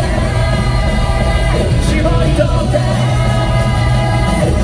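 Japanese rock band playing live over a concert PA, a lead singer holding long, wavering notes over a steady full-band backing of guitars, bass and drums.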